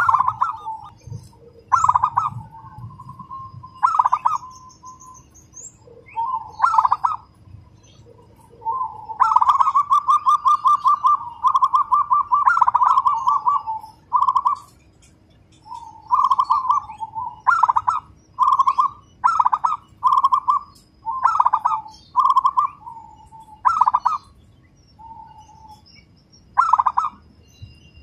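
Local zebra dove (perkutut) cooing in a fast, tight run of notes like a sewing machine about a third of the way in, then a string of short separate coos about one a second. Faint high chirps of other small birds sound behind it.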